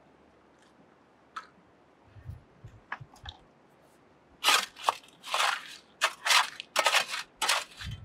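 Faint steady hiss of a stream with a few small clicks. Then, from about halfway, a quick run of loud crunching scrapes as a steel shovel is driven into wet creek gravel and stones.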